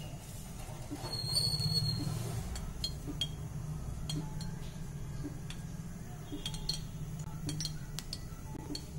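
White cooking oil heating in a metal kadai on a gas burner: a low steady hum with scattered faint clicks and ticks, and a brief faint high tone about a second in.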